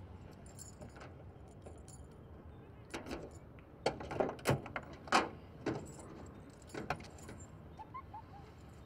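Car keys jangling as a key is worked into a car's trunk lock, followed by a series of sharp metallic clicks and clunks as the lock turns and the trunk lid is released and raised. The loudest click comes about five seconds in.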